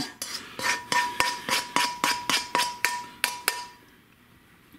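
A spoon knocking and scraping ground beef and grease out of a tilted metal skillet: a quick run of sharp knocks, about four a second, with the pan ringing faintly. It stops about three and a half seconds in.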